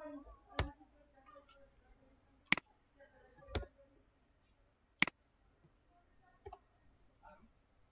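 Sharp single clicks from a computer keyboard and mouse while code is typed and the cursor is placed, five of them spaced a second or more apart, the second and fourth the loudest.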